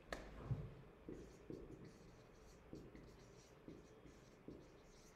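Dry-erase marker writing on a whiteboard: a series of faint, short strokes.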